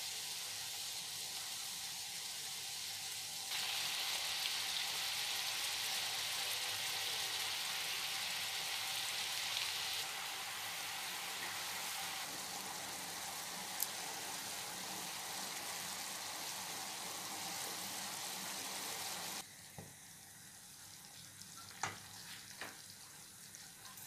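Sugar-and-water syrup bubbling with a steady sizzle in a wok over a low gas flame as it cooks down toward caramel. The sizzle is louder for several seconds early on, then drops away near the end, where a few clicks of a silicone spatula against the pan are heard.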